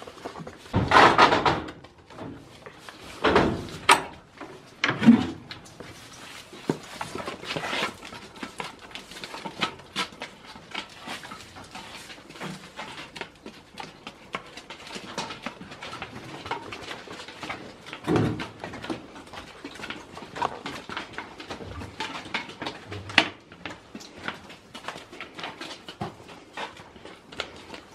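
Goat kids moving about in a straw-bedded wooden shed: steady rustling and small clicks, with a few louder animal sounds about a second in, around three to five seconds in, and again about eighteen seconds in.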